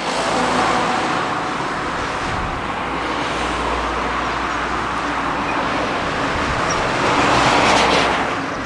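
Jet airliner engines roaring steadily, swelling a little near the end.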